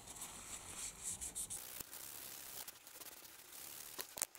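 Faint rubbing of a tissue wiping old thermal paste off the base of a CPU cooler's heatsink, mostly in the first second and a half, with a couple of light clicks near the end.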